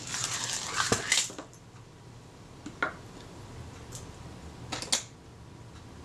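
Small metallic clicks and taps of steel tweezers and tiny camera parts being handled on a workbench: a flurry of clicks with some rustling in the first second and a half, then a few single clicks spaced about a second apart.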